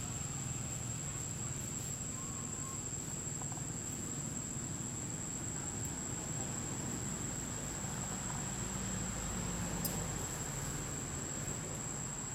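Insects droning with one steady, unbroken high-pitched tone over a low background rumble, with a single faint click about ten seconds in.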